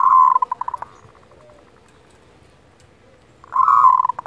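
Zebra dove (perkutut) giving its 'kerot' call twice, about three and a half seconds apart: each a short buzzy note that breaks into a quick stutter as it fades.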